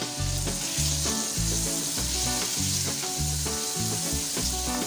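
Sliced onions and freshly added chopped tomatoes sizzling in hot oil in a pot, stirred with a wooden spoon as the masala base is fried. A steady low pulsing beat runs underneath.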